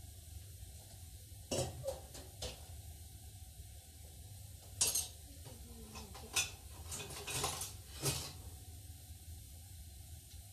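Clinks and knocks of a utensil and dishware against a glass dish, a scattered series with the loudest about five seconds in and a cluster of lighter clinks and scrapes near the end.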